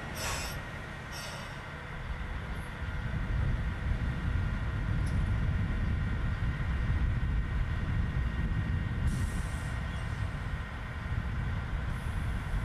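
Meitetsu KiHa 30 diesel railcar standing at a station platform, its diesel engine idling with a steady low rumble that grows louder a couple of seconds in. Two short hisses of air come in the first second or so, and another about nine seconds in.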